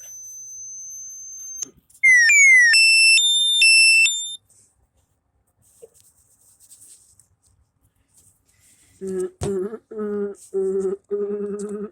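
Electronic tones. A faint high steady tone stops early on. About two seconds in, a loud sequence of beeps slides down twice and then alternates between two pitches. Near the end, a low pitched hum comes in several short pulses.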